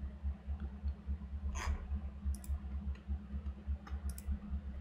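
A few scattered sharp clicks from computer input while a web page is scrolled, over a steady low electrical hum.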